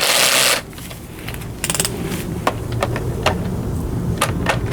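Hand tools working the screws and plastic trim of a car dashboard: a short scrape at the start, then scattered light clicks and knocks, with a quick rattle of clicks about a second and a half in.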